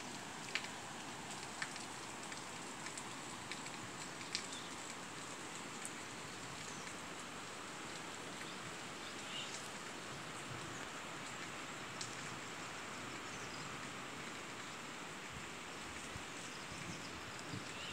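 Steady rush of rainwater runoff flowing down after heavy rain, with a few sharp ticks and a faint steady high-pitched tone above it.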